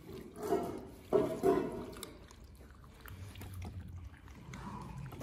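Presa Canario puppies lapping milk from a steel bowl. Two short, louder sounds from the dogs come about half a second and about a second in.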